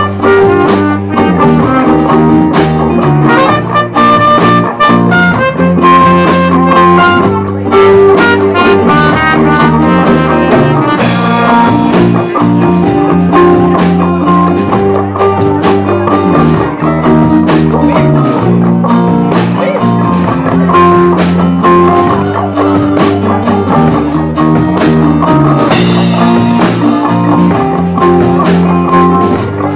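Live band playing a song: electric guitar and drum kit with a steady beat, with cymbal wash swelling about eleven seconds in and again near the end.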